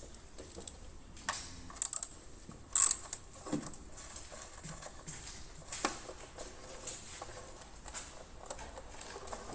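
Irregular light clicks and taps, as of hand tools and small parts being handled.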